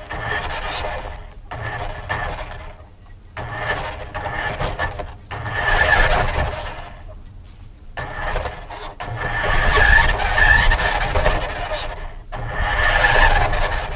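RC car driving in spurts, heard from a camera mounted on it: its motor and tyre noise rise and fall several times as it speeds up and slows down.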